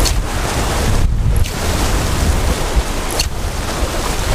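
Wind buffeting the microphone over the wash of ocean surf, with two short lulls, one about a second in and one near the end.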